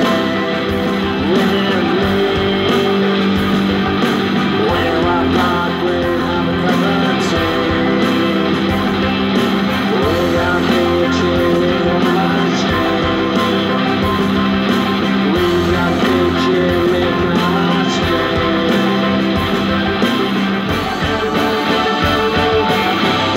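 Guitar-led rock band music with a steady beat.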